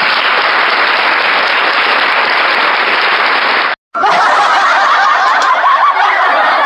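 Canned applause sound effect played from a live-streaming sound card's effect pad, starting and cutting off abruptly after about four seconds. After a brief gap a second canned crowd clip starts, with many voices laughing and whooping.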